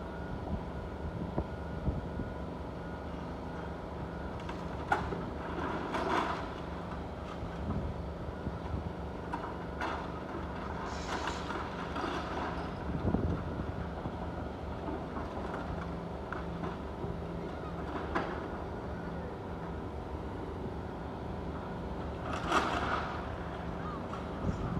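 Heavy demolition machinery's engine running steadily, with scattered knocks and clatters, the loudest about 5, 6, 11 and 22 seconds in.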